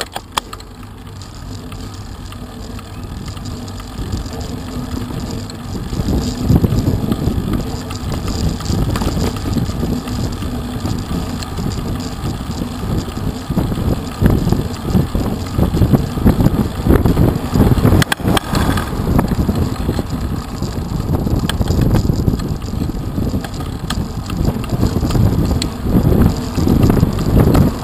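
Wind buffeting the microphone of a camera mounted on a moving road bicycle, a loud, gusty low rumble mixed with tyre noise on the tarmac, growing louder over the first six seconds or so and then holding.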